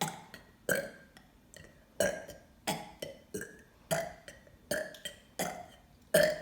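A person burping on purpose, a run of about eight short burps, roughly one a second.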